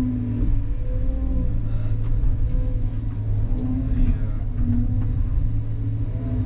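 CAT 320 excavator's diesel engine running steadily under working load, with a whining tone that comes and goes as the hydraulics move the boom and bucket.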